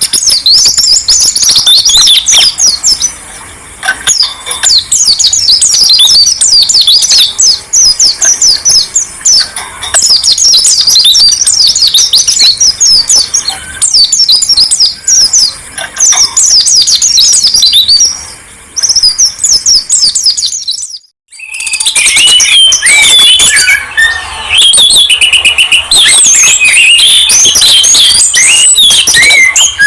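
Songbird song in rapid, high chirping phrases. After a short break about two-thirds of the way through, a different bird's song starts, with lower and more varied whistled notes.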